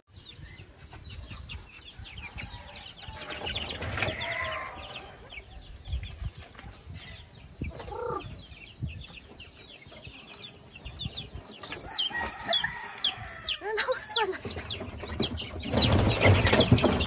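Native chickens clucking and young chickens peeping, with a run of loud, repeated high peeps about twelve seconds in. Near the end a young chicken is grabbed by hand and there is a burst of wing-flapping.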